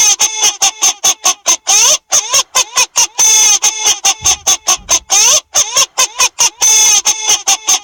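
Loud squawking like a goose or chicken: quick short calls, about four or five a second, broken by a longer call roughly every second and a half, repeating over and over.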